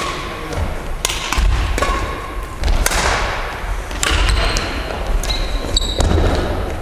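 Badminton rally in a large gym hall: sharp cracks of rackets striking the shuttlecock about once a second, echoing, with footfalls thudding on the wooden court floor. Short high squeaks near the end, typical of court shoes skidding on the floor.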